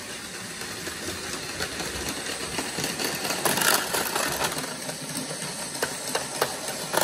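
Battery-powered Plarail Advance toy trains running on plastic track: small electric motors whirring steadily, with scattered clicks from the wheels and track.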